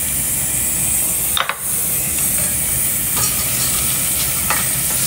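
Food frying in a pan: a steady sizzle, with a few light clicks of a utensil against the pan.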